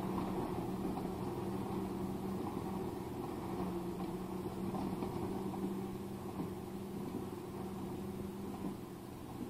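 Erkunt Nimet 70 tractor engine running steadily under load as it pulls a working square baler, fading slightly as it moves away.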